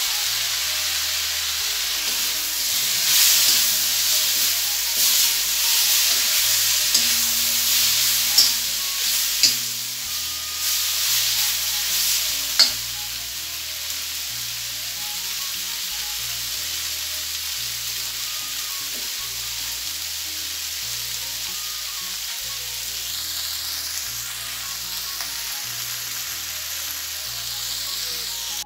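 Pieces of meat sizzling as they fry in a wok, a steady hiss. Over the first half a metal spoon scrapes and knocks against the pan as the meat is stirred; after that the sizzle goes on steadier and a little quieter.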